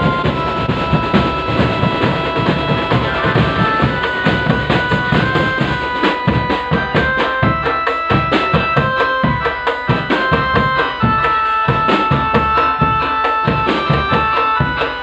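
Drum band music: fast, dense drumming with bass and snare drums under a melody of held notes.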